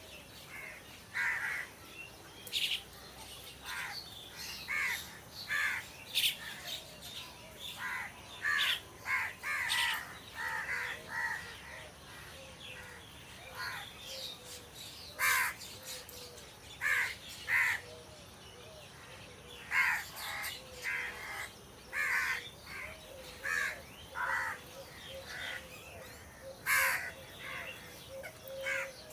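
Crows cawing, short calls repeated every second or so, some coming in quick runs of two or three.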